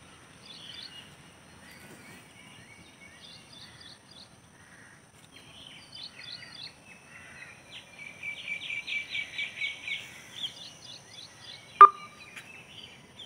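Birds chirping and calling in short repeated high phrases, with a faster run of quick notes a little past the middle. A single sharp click near the end.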